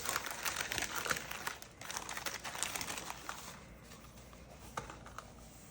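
Packaging wrap crinkling and rustling as it is handled, dense for about the first three seconds and then dying away to near quiet, with one faint click near the end.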